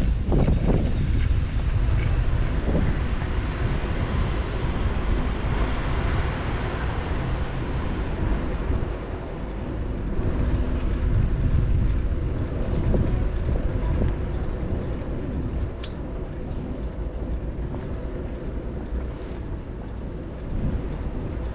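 Wind buffeting the microphone of a camera riding along on a bicycle, a steady low rumble mixed with road and traffic noise, with a single sharp tick about 16 seconds in.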